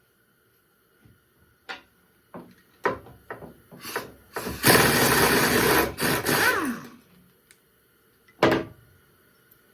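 Several sharp metallic clicks and knocks of tools being handled, then a handheld power tool runs loudly for about two seconds and winds down with a falling whine. One more knock comes near the end.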